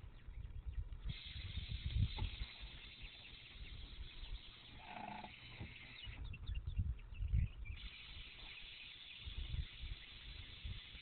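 Wind buffeting the microphone, over a steady high hiss from the Karmann Ghia's air-ride suspension that starts about a second in, stops after about five seconds and starts again near eight seconds. A short squeak comes about five seconds in.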